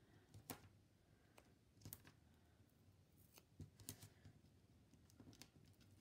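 Faint, scattered small snips and crinkles of double-sided foam tape being cut into pieces and pressed onto cardstock.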